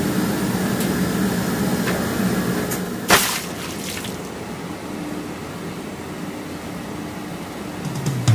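Steady machine hum of industrial washing machines and tumble dryers running. A brief sharp noise about three seconds in, after which the hum is quieter.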